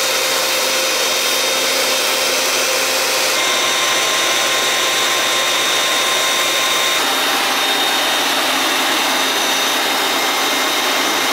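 Bench-top belt sander running steadily and loudly, with a curved wooden trim piece held against the moving belt and sanded to shape.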